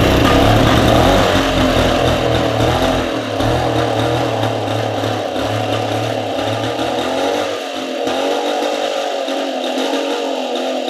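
Early single-cylinder Mobylette moped's two-stroke engine, started by pedalling, running steadily and running well. Its deep lower note drops away about eight seconds in.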